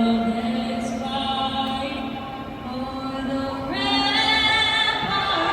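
Voices singing in long held notes over the stadium's public-address system, moving to a higher note about four seconds in.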